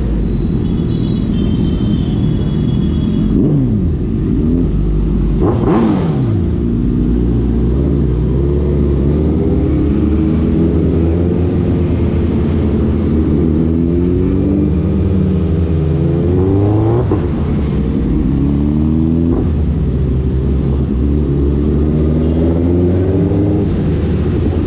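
Suzuki Hayabusa Gen3's inline-four through an Ixil aftermarket exhaust, running under way with a steady low rumble. Its note rises and falls repeatedly as the throttle is opened and closed.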